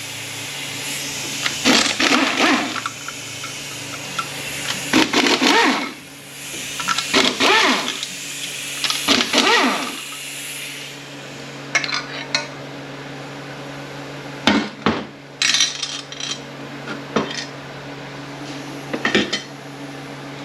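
A power ratchet runs in four short bursts, about a second each, backing out the 10 mm bolts on the extension housing of an Aisin Warner AW30-80LE automatic transmission. It is followed by a series of sharp metallic clinks and knocks as bolts and metal parts are handled and set down. A steady low hum runs underneath throughout.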